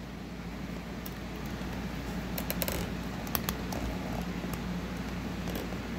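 Steady low background hum, with a few faint light clicks and taps of small things being handled on a tabletop.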